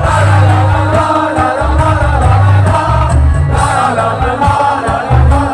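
A live rock band playing with singing over heavy bass, heard loud through the venue's PA.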